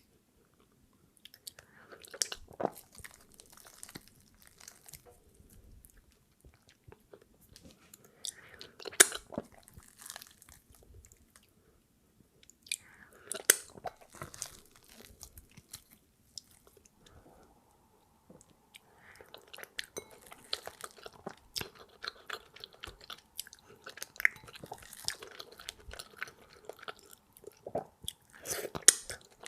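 Close-up mukbang eating sounds of fufu being eaten: wet chewing and mouth clicks that come in bouts with short quiet pauses between them, busiest in the last third.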